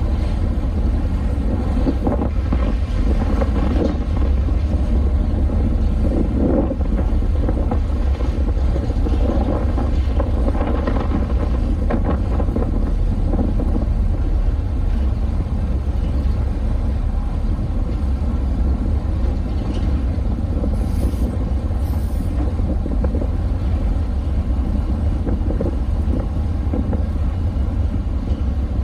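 Car ferry's engines running with a steady low rumble, with wind buffeting the microphone, as the ship comes alongside its berth.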